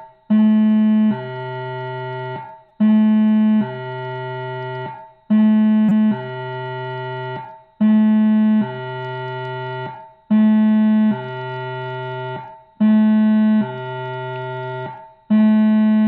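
Midland ER-102 emergency radio's built-in siren sounding through its speaker in a slow two-note cycle: a louder, higher note for under a second, then a softer, lower note for about a second and a half, then a brief break, repeating about every two and a half seconds.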